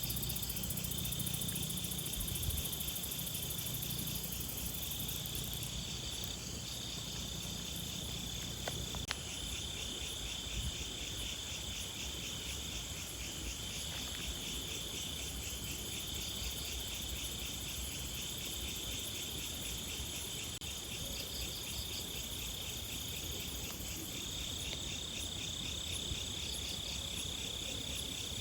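A chorus of insects calling together in a steady, unbroken din: one high, even trill that breaks off briefly every few seconds, over faster pulsed chirping higher up.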